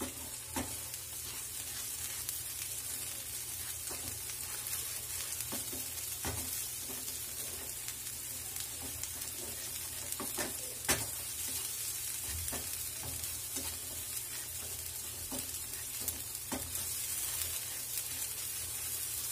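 Coarsely ground green pea paste sizzling in oil in a non-stick pan over a steady hiss, while a slotted spatula stirs and scrapes it with irregular clicks, one louder scrape about eleven seconds in. The paste is being fried until its moisture cooks off and it turns dry.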